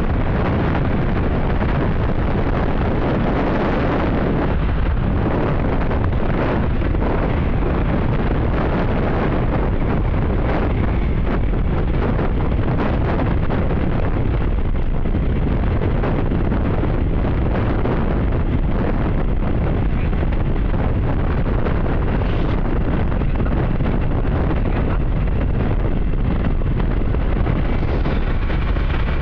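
Loud, steady wind rush buffeting the microphone of a motorcycle riding at speed, with the bike's engine and road noise underneath.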